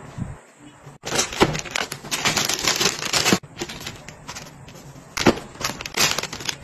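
Clear plastic storage bag crinkling and rustling as plush slippers are handled on it, in bursts: a brief lull about half a second in, a long busy stretch of crinkling, then scattered sharper crackles.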